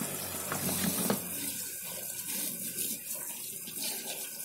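Tap water running steadily into a stainless steel sink while dishes are washed, splashing over a plastic bowl and a wooden spatula being rinsed. A couple of light knocks come about a second in.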